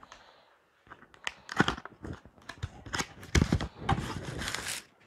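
A cardboard product box being opened by hand: irregular clicks and scrapes of the cardboard flaps, a louder handling cluster about three and a half seconds in, and a rustle of packaging near the end.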